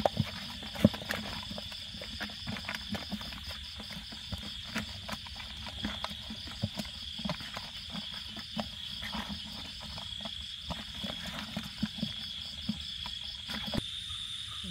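Crickets trilling in a steady high chorus, with frequent short clicks and rustles over it, the sharpest about a second in.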